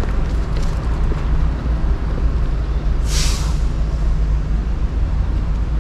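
Steady low engine rumble from a large vehicle nearby, with a short burst of air-brake hiss, about half a second long, about three seconds in.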